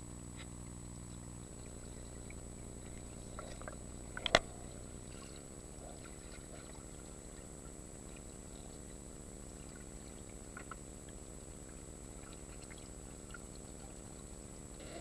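Muffled water noise in a stingray pool, with a steady low hum, scattered small clicks and one sharp knock about four seconds in.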